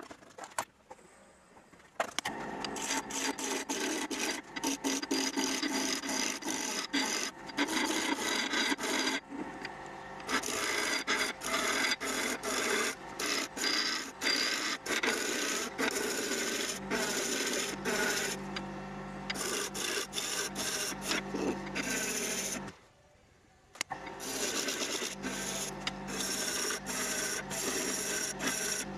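Gouge cutting a spinning wood blank on a wood lathe: a scraping, hissing cut made in many short, uneven strokes. It starts about two seconds in and breaks off briefly about two-thirds of the way through.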